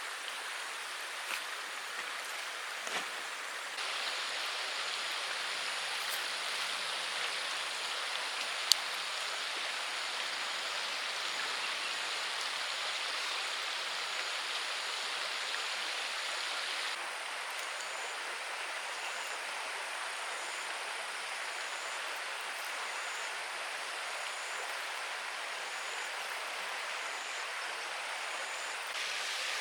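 Steady rain falling, an even hiss that shifts slightly in level twice, with a few light ticks and one sharp click about nine seconds in.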